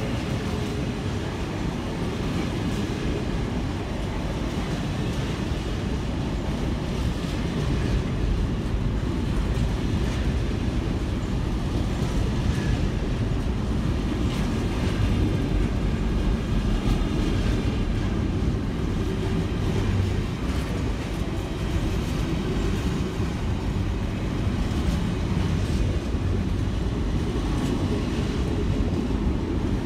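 Freight train of container flat wagons rolling past close by: a steady rumble of steel wheels on the rails.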